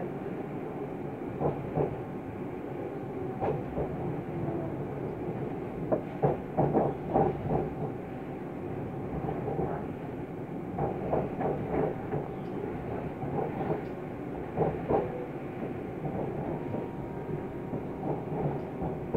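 London Overground Class 710 electric train heard from inside the carriage while running at speed: a steady rumble, with repeated clusters of clicks and knocks as the wheels cross rail joints and points.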